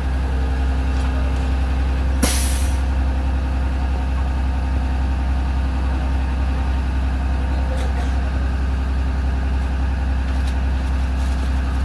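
2020 Blue Bird Vision school bus's diesel engine idling with a steady low rumble. About two seconds in, its air brakes give one short hiss of released air.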